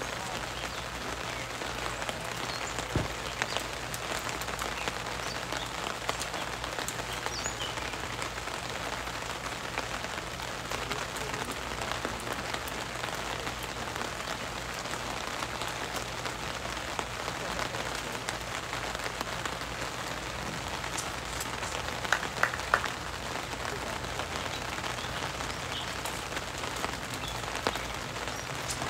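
Steady rain: an even hiss dotted with small drop ticks, with a short cluster of sharper taps about three-quarters of the way through.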